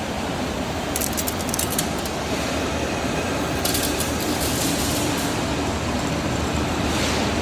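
Continuous mesh belt heat-treatment furnace line running with a steady machine hum. Short bursts of metallic jingling come twice, about a second in and about four seconds in, and again near the end.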